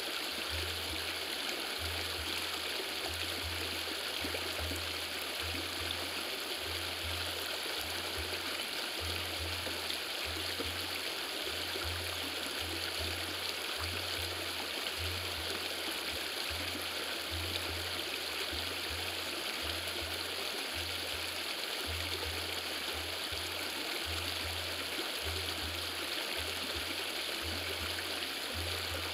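Steady rushing of a river stream, running water with no change in level, with a low rumble underneath that comes and goes every second or so.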